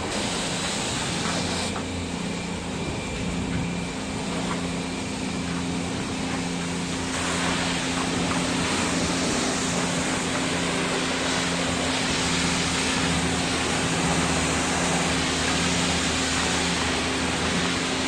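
Self-service car wash high-pressure wand spraying water onto a car, a steady hiss over the steady hum of the wash pump. The spray hiss grows louder about seven seconds in.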